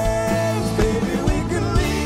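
Live band playing a song: a male lead vocal holds a long note for about the first half second over strummed acoustic guitar, electric guitar and a steady drum beat.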